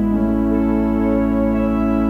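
Organ playing slow, sustained chords over a steady low held note, moving to a new chord just after the start.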